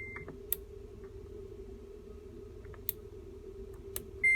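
Automatic washing machine control panel: a high electronic beep fades out, then a few sharp clicks from the controls as a wash program is selected, and another beep starts near the end, over a steady low hum.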